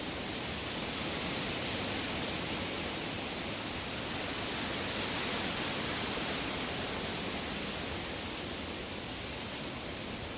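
Woodland ambience: an even rushing hiss with no distinct calls or knocks, swelling a little around the middle and easing toward the end.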